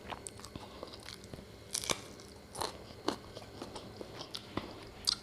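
A person chewing a mouthful of spicy chilli-powder rice close to the microphone, with irregular small crunches and clicks of the mouth and teeth.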